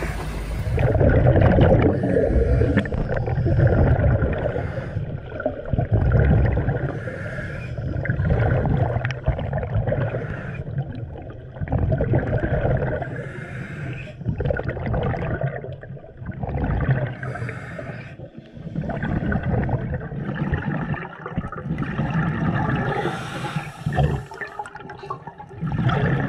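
Underwater audio of scuba exhaust bubbles gurgling and rumbling, swelling and fading in surges every two to three seconds with each exhaled breath.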